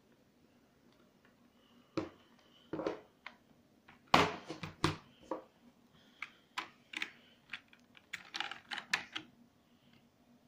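A4Tech X7 G800V plastic gaming keyboard being handled: irregular clicks and knocks of plastic as it is turned over and its USB cable is moved about on it, loudest about four seconds in.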